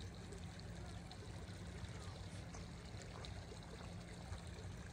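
Quiet, steady trickle of water at the edge of a lake.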